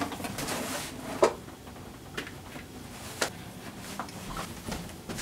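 A few soft knocks and clicks, roughly a second apart, over quiet room tone.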